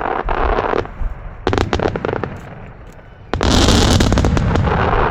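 Starmine fireworks display: quick volleys of aerial shells bursting and crackling, a short lull, then the loudest burst about three and a half seconds in, trailing off with a long hiss.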